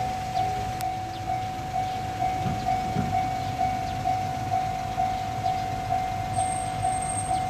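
Railway level-crossing warning bell ringing in a steady, even beat of about two strokes a second, with a low rumble underneath.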